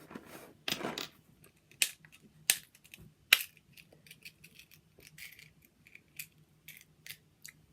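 A plastic Tic Tac box being handled: a short rattle of the mints near the start, then a few sharp clicks of the flip-top lid among lighter ticks.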